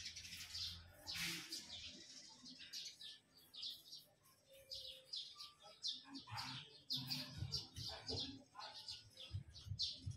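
Bird-like chirping throughout, over quiet rustling and handling as hands work fishing line against a canvas bag, with a few soft low knocks in the second half.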